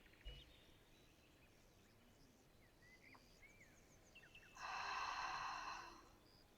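Faint forest ambience with scattered short birdsong chirps. About four and a half seconds in comes one long breathy exhale lasting a little over a second: a slow release of breath through the mouth.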